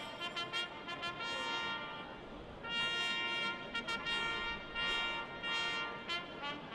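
Brass music led by trumpets, playing short repeated notes and longer held notes.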